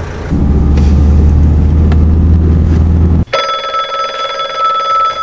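A car engine running with a loud, steady low rumble inside the cabin, which cuts off abruptly about three seconds in. A corded desk telephone then rings with a steady electronic tone for about two seconds.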